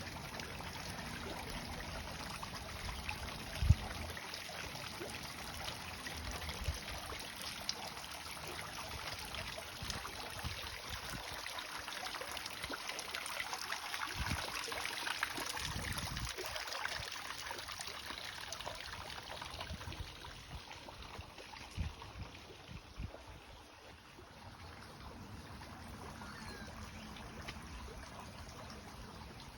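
Running water trickling and splashing steadily, growing louder midway and fading away in the last third. A few dull low thumps sound over it.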